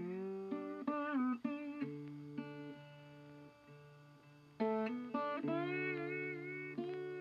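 Background music: a guitar melody of held notes that bend and slide in pitch.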